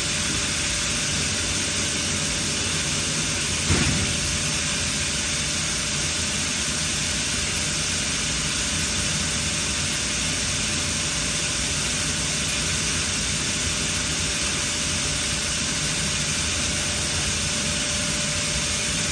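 Steady machine noise with a constant hum, broken by one sharp knock a little under four seconds in.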